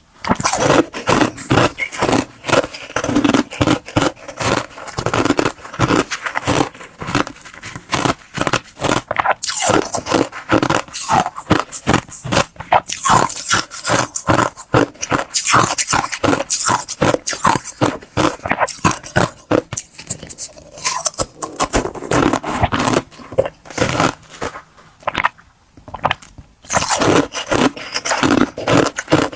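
Clear ice being bitten and chewed close to the microphone: a fast, continuous run of crisp cracks and crunches, with a short pause near the end.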